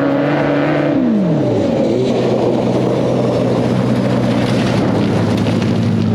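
Off-road buggy engine held at steady revs, then dropping sharply in pitch about a second in as the throttle comes off, and running on at lower revs.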